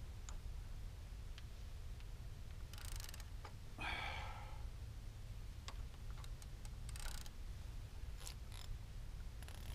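Spinning reel being wound in on a fishing rod: light, irregular ticking and clicking from the reel mechanism, with a few short hisses. A brief higher-pitched sound about four seconds in. Steady low rumble of wind on the microphone underneath.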